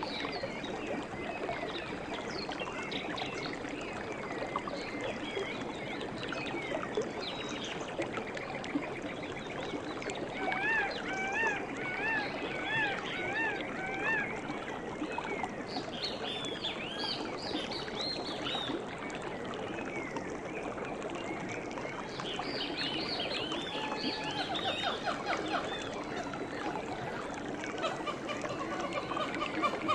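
Running water, a steady trickling stream, with small birds singing over it. About ten seconds in comes a run of quickly repeated chirps, and more chirping phrases follow later.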